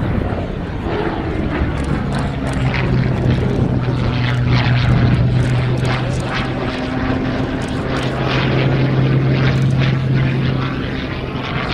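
Hawker Hurricane Mk.I's Rolls-Royce Merlin V12 engine and propeller droning steadily as the fighter flies overhead, its pitch holding level for most of the pass.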